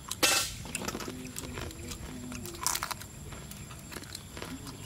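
Close-up chewing of a crispy sugar-fried potato snack, with small crunchy clicks throughout. Two louder crunches come, one just after the start and one a little past the middle.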